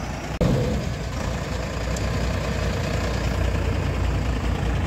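JCB backhoe loader's diesel engine running steadily as the machine drives slowly, with a brief break in the sound about half a second in.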